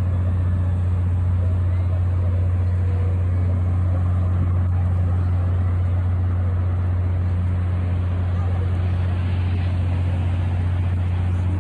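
Steady, unchanging low mechanical hum with one fainter overtone above it, under a faint haze of outdoor noise.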